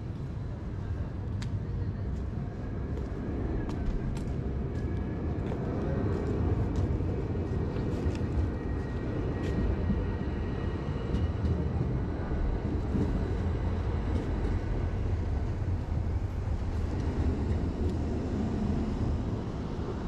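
City street ambience dominated by the steady low rumble of motor traffic, with a faint high whine in the middle stretch and scattered small clicks.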